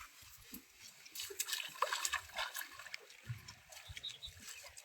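Small irregular splashes and trickling of seawater as a fresh catch is rinsed by hand.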